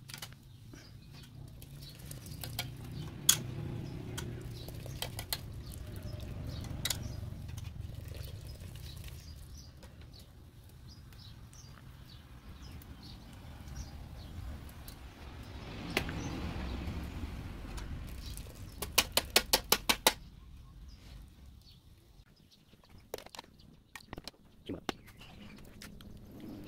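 Metal sieve and utensils clicking against a large aluminium cooking pot over a wood fire: scattered clicks, then a quick run of about nine sharp taps a little before two-thirds of the way through. A low rumble rises and falls beneath them, dropping away after the taps.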